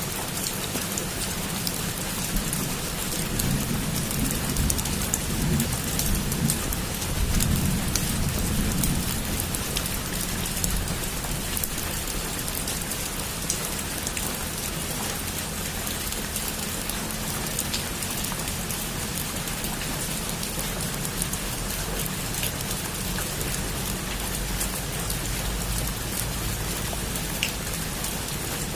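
Heavy rain falling steadily on a roof. A low rumble swells between about three and nine seconds in.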